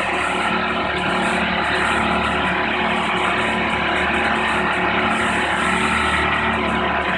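Marine travel lift's engine and hydraulics running steadily while it lifts a sailboat in its slings: a continuous mechanical hum with several steady tones.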